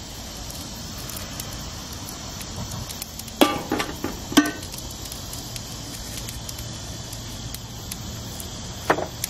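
Seasoning shaken from a metal shaker over sliced vegetables in a stainless steel pan, over a steady crackling hiss. Two sharp metallic clinks ring out about three and a half and four and a half seconds in, and a shorter ringing knock comes near the end.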